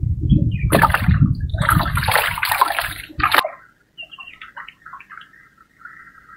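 Water splashing and sloshing as a fishing line is hauled hand over hand from a river into a wooden boat; it stops abruptly about three and a half seconds in. Faint scattered ticks and a thin steady high tone follow.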